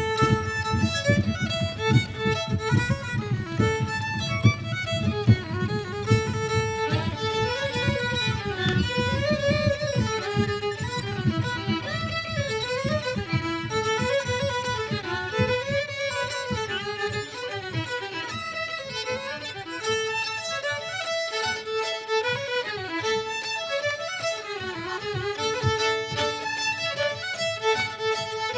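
Two violins played as a duet, bowing a moving melody.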